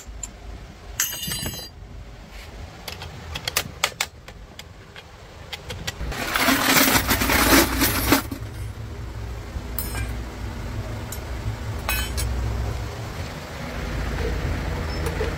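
Metal parts clinking and tapping, with a loud hissing burst lasting about two seconds from about six seconds in, over a low steady hum.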